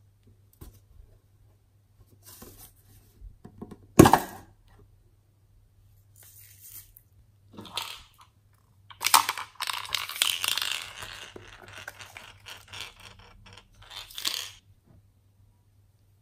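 Hollow toy figures handled close to the microphone: a sharp knock about four seconds in, then a long stretch of scratchy crackling and scraping from about nine seconds to near the end.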